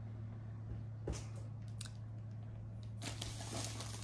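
Plastic packaging wrap crinkling as it is handled, first a few light ticks and then, from about three seconds in, a steady run of crinkling.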